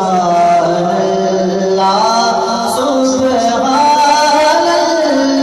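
A man's voice chanting an Islamic devotional recitation into a microphone, holding long notes that bend and waver in pitch.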